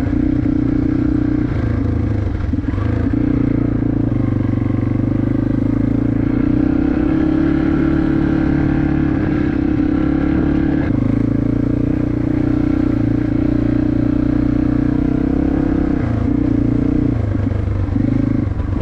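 Yamaha TT-R230 dirt bike's single-cylinder four-stroke engine running under throttle while being ridden, its note mostly steady with a few brief dips and pitch changes as the throttle is eased and reopened, most of them near the end.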